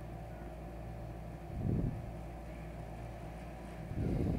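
Wooden spatula stirring onions and spices in a metal pressure cooker, with two soft scrapes about two seconds apart over a steady low hum.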